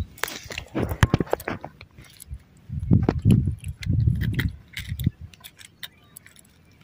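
Metal spoon lure and its hook clinking and rattling in irregular light clicks as fingers work the hook free from a catfish's mouth, with a few dull handling thumps in the middle.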